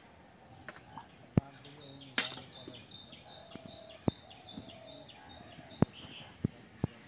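Irregular sharp slaps and knocks, the loudest about two seconds in, as live fish are handled in a wire landing net on brick paving at the pond edge. A bird chirps in a quick run of high notes through the middle.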